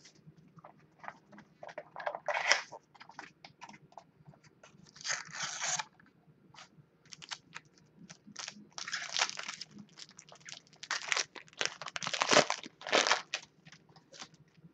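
Clear plastic wrapper on a trading-card mini box being torn open and crinkled, in irregular bursts of crackling, loudest in a cluster in the second half.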